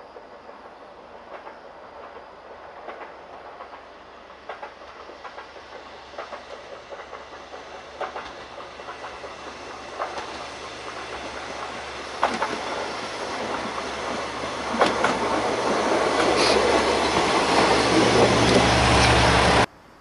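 A diesel railcar approaching, its wheels clicking over rail joints with the clicks coming further apart and the running noise growing steadily louder. Engine hum joins in over the last few seconds before the sound cuts off abruptly near the end.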